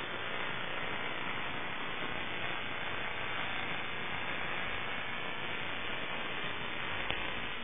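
Steady hiss like radio static from an FPV video downlink's audio channel, even and toneless, with a faint tick near the end.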